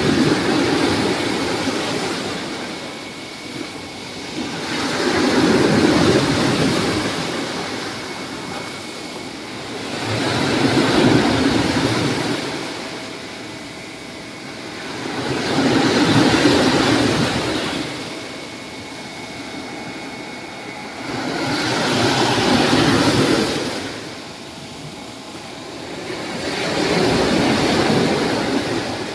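Ocean waves breaking on a sandy beach, the surf rushing up the shore and drawing back in slow surges about every five to six seconds.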